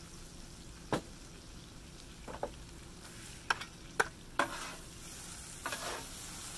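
Yakisoba noodles sizzling on a Blackstone steel flat-top griddle, freshly splashed with soy sauce, as two metal spatulas toss them. The spatulas clack and scrape sharply on the griddle now and then, and the sizzle grows louder in the second half.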